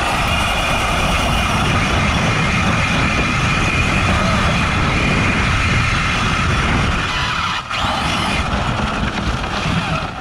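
Arrma Mojave RC desert truck driving hard across grass and dirt, its electric motor and drivetrain running under load with a steady rush of noise, heard from a camera inside the truck's body. It eases off about three-quarters of the way through and slows toward a stop near the end.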